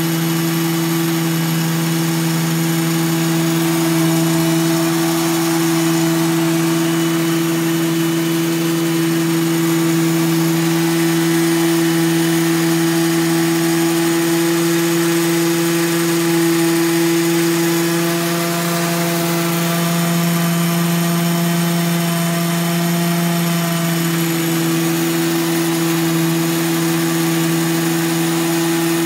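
Small petrol engine of a student-built fuel-economy car running at a steady, unchanging speed, with an even low-pitched note.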